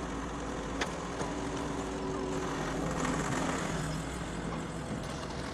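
Doosan DX140 excavator's diesel engine running steadily, with a single sharp click about a second in.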